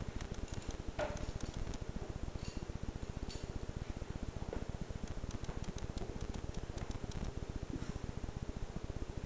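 Scattered light clicks and taps of a kitten and a Boston terrier at play, paws and claws on a mat, a wooden chair and a tile floor, over a steady low rumbling background noise.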